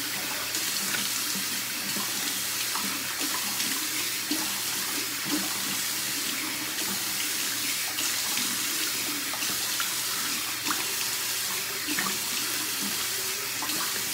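Bathroom tap running steadily into a sink, with small splashes from rinsing under the stream.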